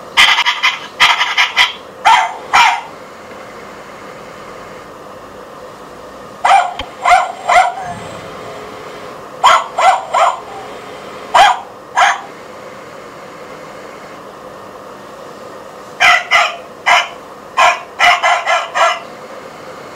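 Battery-powered toy terrier playing recorded dog barks and yaps through its small speaker: four runs of several quick, short barks, over a steady faint hum.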